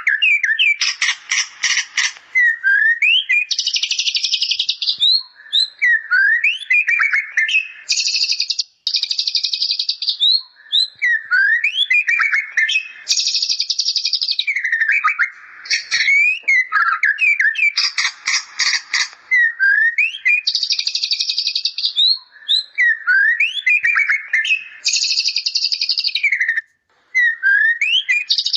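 White-rumped shama (murai batu) singing continuously: a loud, varied song of short rising whistles, rapid rattling trills and harsh buzzy phrases, with imitations of the bar-winged prinia (ciblek) worked into it. The phrases come round again in a similar order every few seconds.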